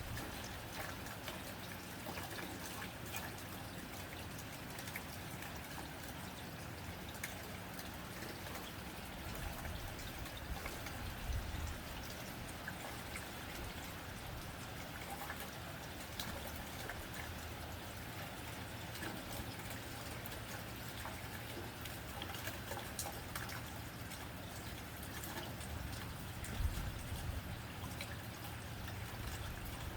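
Steady rain on a tin roof: an even patter of drops with scattered individual ticks, and a couple of brief low thumps, one about a third of the way in and one near the end.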